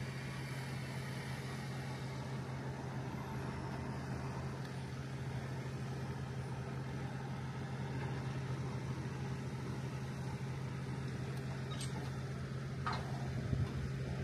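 Truck engine idling steadily, a low drone. A short higher-pitched sound comes near the end.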